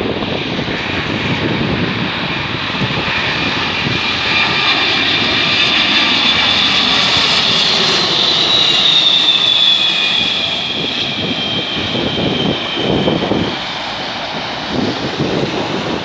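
Boeing 767-300ER's twin turbofan engines on final approach: a steady jet rush with a high fan whine that grows louder, then slides down in pitch as the airliner passes. Wind buffets the microphone near the end.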